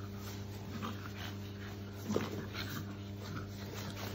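Shar Pei puppies play-fighting, giving a string of short yelps and whines, the loudest about two seconds in.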